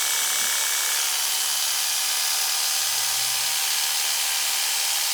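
Electric dog-grooming clipper running steadily with an Artero 1.5 clipper blade fitted, being tested on string. The blade is noisy and has a rattle, though it still cuts reasonably.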